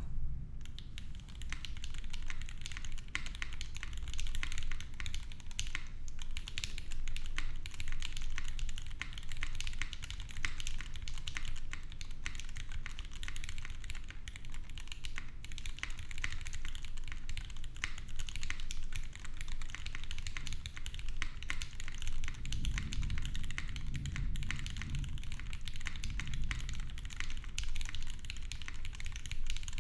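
Continuous, fast typing on a Keycult 1/60 gasket-mounted 60% keyboard with a brass plate: smooth, lubed linear switches (KS3 Gateron housings with UMPHWE stems) under GMK keycaps, keystrokes starting about half a second in. Underneath there is a steady low thunder rumble that swells for a few seconds about three-quarters of the way through.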